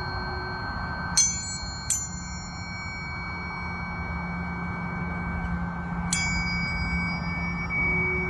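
Planetary tuning forks struck three times, twice in quick succession and once more about four seconds later. Each strike is a sharp click followed by high ringing overtones, over steady tones from forks still sounding.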